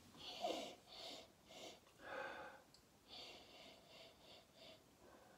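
A man sniffing a tub of shaving soap up close: a faint run of short, quick sniffs through the nose, about four in the first half and five more in the second.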